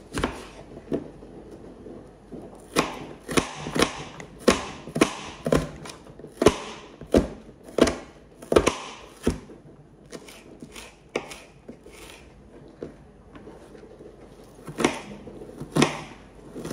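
Kitchen knife slicing an onion on a cutting board: a series of sharp knocks as the blade strikes the board, coming about two a second for several seconds, then sparse, with two louder knocks near the end.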